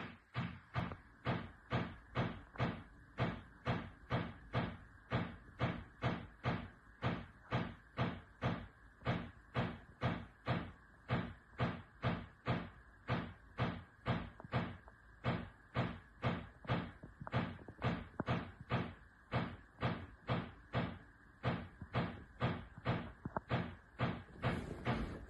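A kitchen cupboard door banging over and over in a steady, even rhythm, about two knocks a second.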